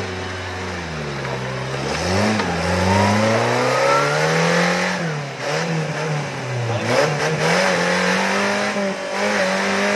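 An off-road 4x4's engine revving hard as it climbs out of a deep muddy trench. The revs climb over the first few seconds, then rise and fall repeatedly under load.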